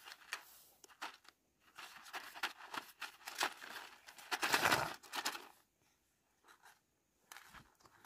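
Irregular rustling and crinkling of something being handled, loudest about four and a half seconds in, then it nearly stops for a second or so.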